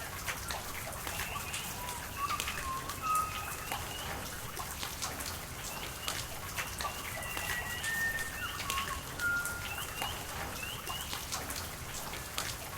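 Rain falling in a steady patter with many sharp drip ticks, scattered with short, high, pitched plinks throughout.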